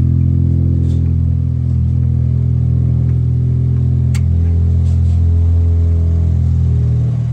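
An engine runs steadily at constant speed as a loud, even low drone; it is most likely the compaction equipment working outside. A single sharp click sounds about four seconds in.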